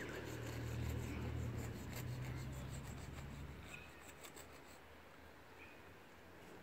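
Chalk scratching and rubbing on a concrete path, faint, under a low engine hum that fades away about three and a half seconds in.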